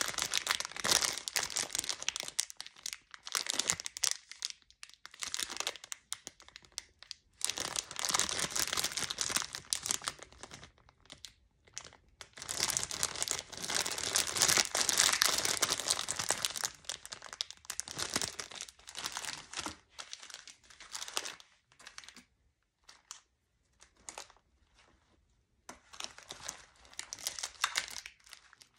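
Clear plastic candy wrappers crinkling as they are handled and turned over, in irregular bursts with short pauses. The crinkling is loudest about halfway through and thins out later.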